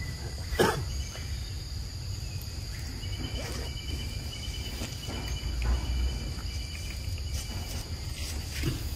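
Insects calling steadily at a high pitch, joined by a rapid pulsing trill in the middle, over a low rumble. A single sudden thump comes about half a second in.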